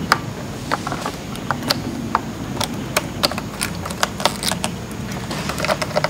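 Scattered light clicks and taps, irregular and a few each second, from fingers handling a small circuit board and its ribbon cable as it is fitted back into an open Panasonic Toughbook CF-30 laptop chassis.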